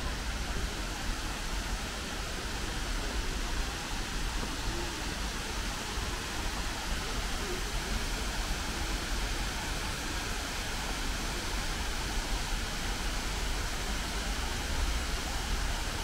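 Steady rushing noise of flowing stream water, with a low rumble underneath.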